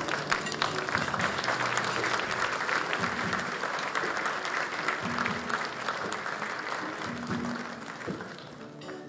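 Audience applauding, a dense patter of clapping with background music underneath; the applause thins out near the end.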